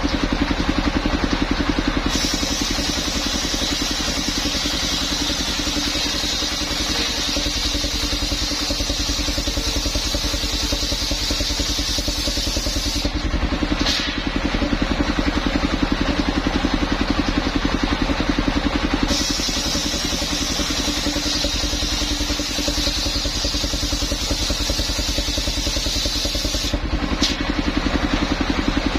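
Small engine driving a saw through coconut-palm trunk, running steadily throughout. Twice the blade is in the wood for about ten seconds, adding a high cutting hiss over the engine, with a short gap in between.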